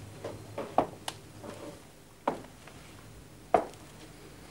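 A handful of sharp knocks and clicks at uneven intervals, the loudest about a second in and again near the end, over a faint low hum.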